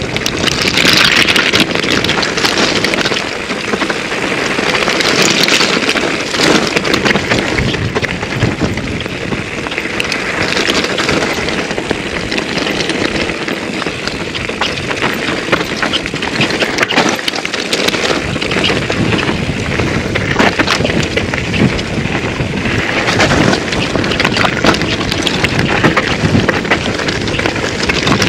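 2008 Intense Tracer mountain bike descending a rocky trail: tyres crunching and skittering over loose stone, with the bike rattling and clattering continuously and wind buffeting the camera's microphone.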